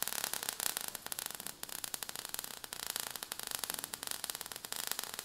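Crackling sound effect of showering sparks: a dense, irregular run of small pops over a hiss.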